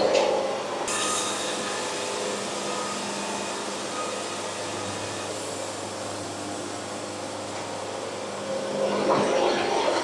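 A machine running steadily: a continuous drone with a low hum under a hiss, the hiss brightening about a second in.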